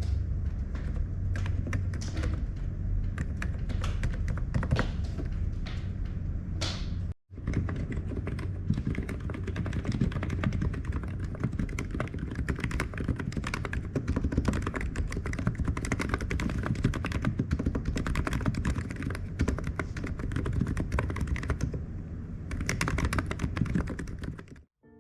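Fast typing on a computer keyboard: a dense, continuous run of key clicks over a low hum. It breaks off for a moment about seven seconds in, then carries on.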